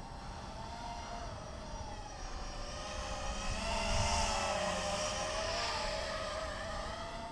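Emax 250 Pro quadcopter's brushless motors and propellers whining. The pitch rises and falls with the throttle, swelling to its loudest about four seconds in.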